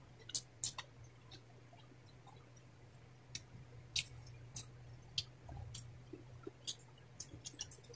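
Faint chewing of people eating with their hands, with scattered sharp mouth clicks and smacks, over a steady low hum.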